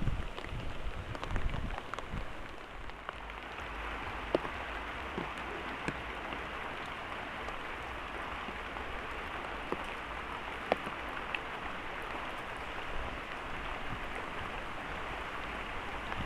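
Heavy rain falling steadily, an even hiss dotted with single sharper drop hits. There is some low rumbling in the first couple of seconds.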